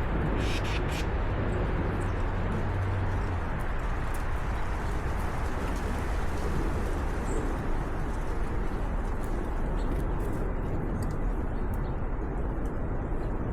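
Outdoor backyard ambience at bird feeders: doves cooing over a steady rushing background, with a brief high bird chirp about seven seconds in.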